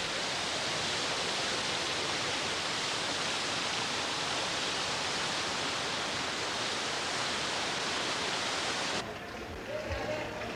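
Trevi Fountain's cascades splashing into the basin: a steady rushing of water that cuts off abruptly about nine seconds in, leaving a fainter sound.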